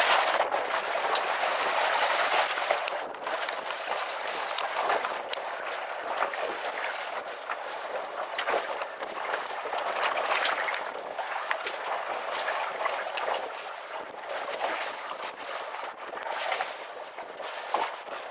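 Gusting wind buffeting the microphone, with crackles and pops, over the splash of choppy waves. It is loudest in the first few seconds.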